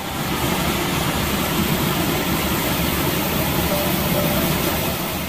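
Trail motorcycle engines running steadily.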